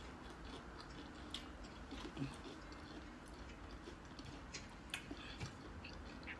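Faint chewing of fried corn nuggets, with a few soft crunches and clicks scattered through.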